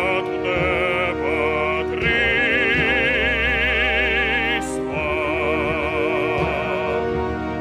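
Slow, sad-sounding music with an operatic voice singing long held notes with wide vibrato over a sustained accompaniment.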